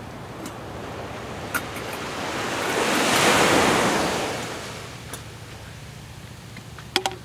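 A wave washing up on the shore, swelling to a peak and dying away over about three seconds, with a few light clicks before and after it.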